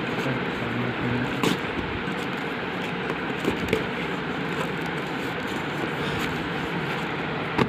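Steady background hum and hiss, with a few sharp clicks, one about a second and a half in and another near the end.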